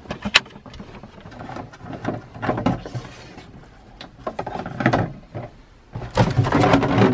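A sharp click as a push-button cabinet latch is opened, then irregular knocks, scrapes and rustling as a plastic water canister with a hose attached is handled inside the cabinet, busiest near the end.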